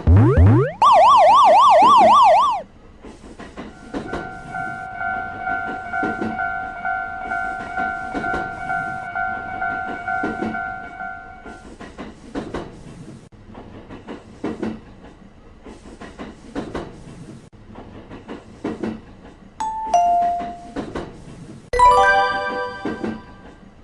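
Animated level-crossing sound effects: a fast warbling siren-like tone in the first couple of seconds, then a railway crossing alarm ringing steadily for about eight seconds over a regular run of knocks. Near the end a two-note falling chime, then a short chord-like horn blast.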